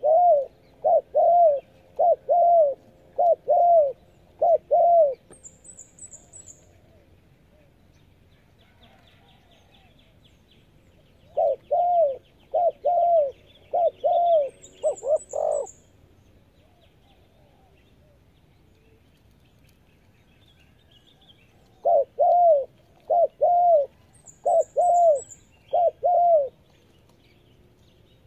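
Spotted dove cooing in three bouts of repeated coos, each a few seconds long and spaced about ten seconds apart. A small bird gives a faint, high chirp three times.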